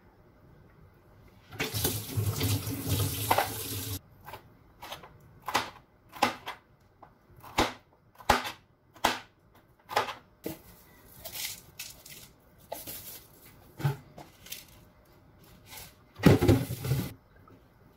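Chef's knife chopping bitter gourd on a plastic cutting board: about a dozen separate sharp knocks at an uneven pace, roughly one a second. About two seconds in, a tap runs for a couple of seconds, and a shorter rush of noise comes near the end.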